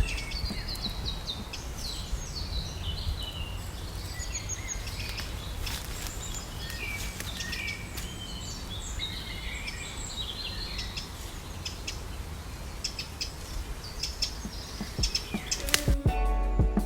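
Songbirds chirping and trilling over a steady hiss of rain, with scattered sharp ticks. Near the end, music comes in.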